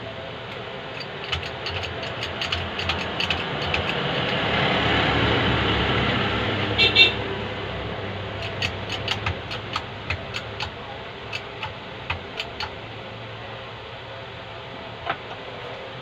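Short metallic clicks and taps from a hydraulic bottle jack in a shop-made press being worked to press a new shaft into a ceiling fan, the sharpest one about seven seconds in. Under them runs a steady hum that grows louder in the middle and fades again.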